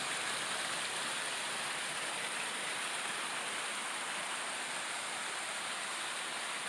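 Small woodland creek rushing and splashing over rocks in a steady cascade.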